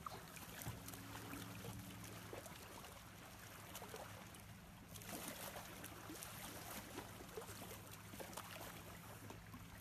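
Faint outdoor ambience: a steady low hum under an even hiss, with scattered small crackles.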